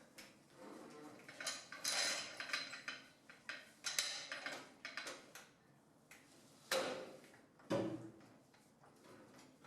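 Metal tools and parts clanking and clattering during work under a car chassis: a run of knocks and rattles, then two louder thuds about a second apart near the end.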